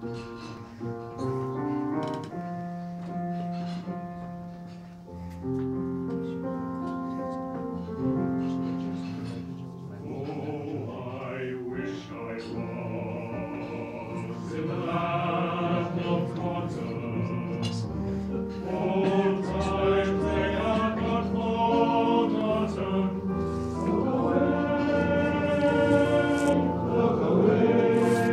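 Male voice choir singing in harmony, slow held chords that swell louder through the second half.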